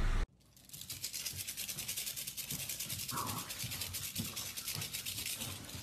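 A French bulldog scampering on a hardwood floor: a fast, steady rasping scratch with scattered soft thumps of its paws, and one short higher sound about three seconds in.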